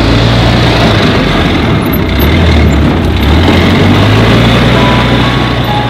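Polaris Ranger UTV engine running as the vehicle drives off, its note dipping for a moment midway and then picking up again.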